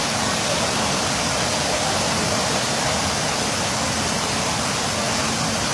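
Steady rush of water pouring from overhead waterfall showers into a spa pool, with the pool water churning below them.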